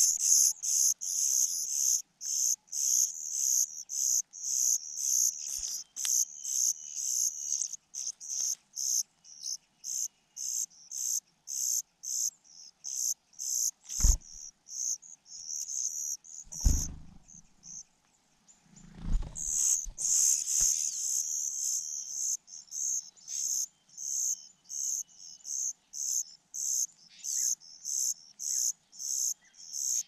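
Songbird nestlings giving thin, high-pitched begging cheeps for food, a rapid train of short calls about two a second. The calls pause briefly after the middle, then swell into a dense burst. A few low thuds break in.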